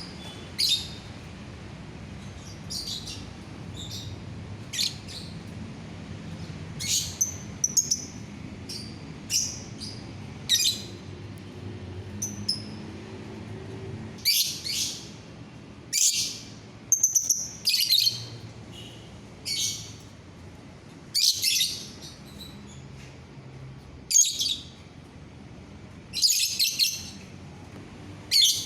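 Lovebird giving short, shrill chirps and chattering calls, one every second or so, coming closer together and louder in the second half.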